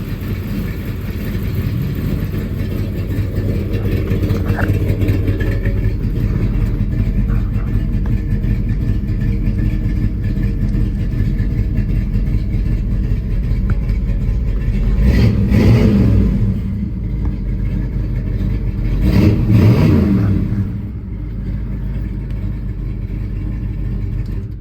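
1979 Dodge Li'l Red Express pickup's 360 V8 running at a steady idle, revved up and back down twice, about fifteen and nineteen seconds in.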